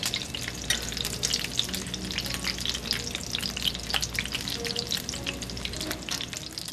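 Egg-battered dongeurangttaeng (thick Korean meat patties) frying in oil on a flat iron griddle: a steady, dense crackling sizzle that sounds like rain.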